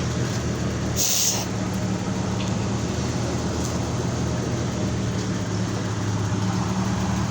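Car engine idling steadily, with a short hiss about a second in.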